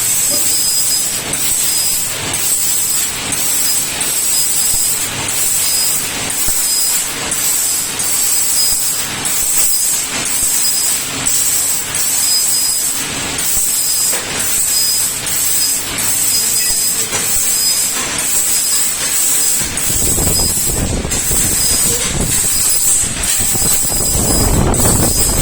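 Fiber laser cutter cutting stainless steel sheet: a loud hiss of the assist-gas jet with a faint high whine, breaking off briefly every second or so. A low rumble joins in about twenty seconds in.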